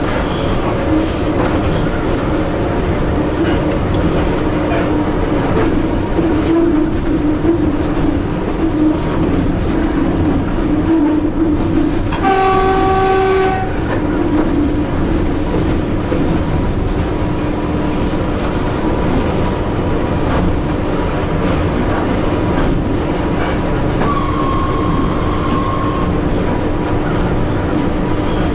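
Steady running noise of an EP1 electric locomotive at speed, heard from inside the cab, with a low hum throughout. About halfway through, a train horn blows once for about a second and a half. Near the end, a single steady tone sounds for about two seconds.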